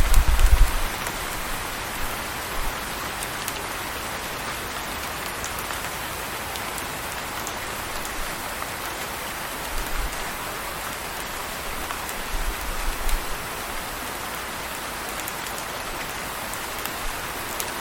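Steady rain falling on a surface, an even hiss of many drops, with a brief low rumble at the start and another about twelve seconds in.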